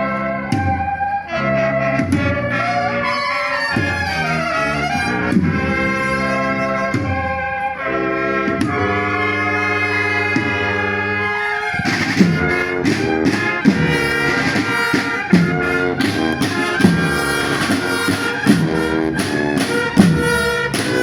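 Music led by brass instruments playing held, chordal phrases; about halfway through, drums come in with a steady beat under the melody.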